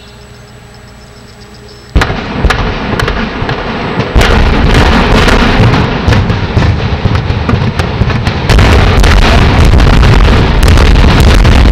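Demolition implosion charges detonating in a rapid string of sharp bangs, starting suddenly about two seconds in. They run together into a dense, loud barrage with a heavy low rumble, which grows louder past the middle.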